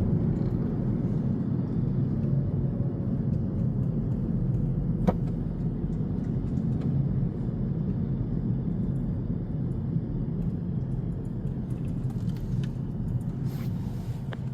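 Steady low rumble of a car driving, heard from inside the cabin, with a single sharp click about five seconds in.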